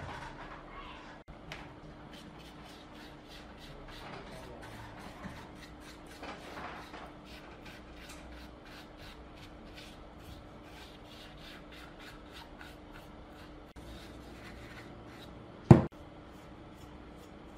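Paintbrush bristles scrubbing dirt off an old loudspeaker driver, a steady run of short brushing strokes several times a second. A single sharp knock near the end.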